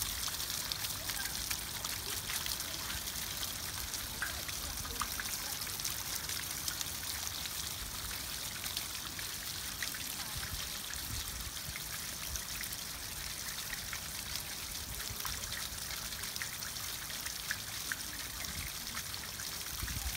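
Elephant-statue garden fountain running: water spouting from the trunk splashes over the statue and trickles down onto a bed of pebbles, a steady splashing trickle with small drip ticks.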